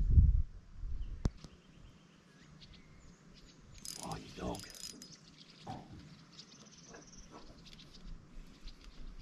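Birds and insects chirping in the background, with a dull low thump at the very start and a short noisy burst about four seconds in.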